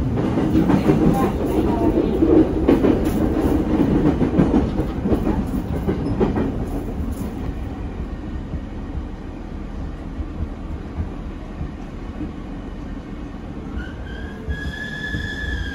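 Inside the cabin of a JR 209 series 1000-number electric train slowing into a station: wheels rumbling and clicking over rail joints, loud at first and growing quieter as the train slows. Near the end a brief high tone with overtones rises and then falls.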